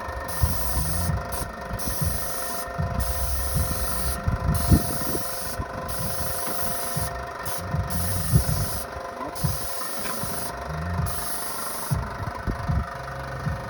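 Garage door in motion: a steady mechanical hum with irregular knocking and rattling throughout.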